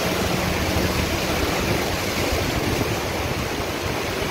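Steady rushing wash of floodwater churned up by a four-wheel-drive vehicle's tyres as it drives through a flooded street, with a faint engine hum underneath.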